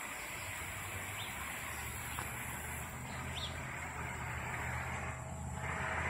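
Steady low hum of vehicle engines, with a vehicle passing that swells up about five seconds in and is the loudest part; two short high chirps from a bird.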